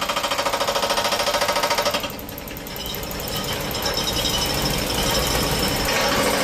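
Excavator running with a fast, even pulsing sound. It drops back about two seconds in, then builds up again to full strength near the end.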